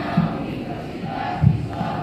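A large crowd of voices sounding together, relayed over loudspeakers, with two low thumps.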